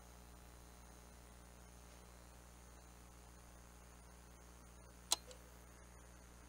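Faint steady electrical hum and hiss from a security-style live camera's microphone. About five seconds in there is one sharp click, then a softer one just after it, as the camera switches to black-and-white night mode: the IR-cut filter flipping.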